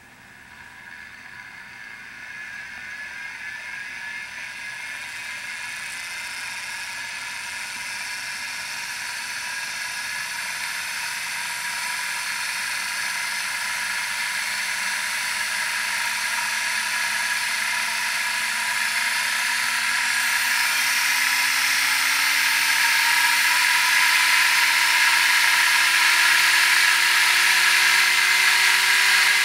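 Homemade belt speed-increase drive spinning up: a 120-volt DC motor drives, through two belt stages, an old VCR head drum on ball bearings. The whirring whine grows steadily louder and slowly climbs in pitch as the drum gains speed.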